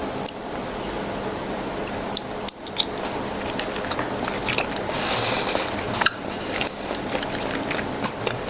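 Close-miked eating of seblak: soft mouth clicks and crunches, with a short loud noisy burst about five seconds in.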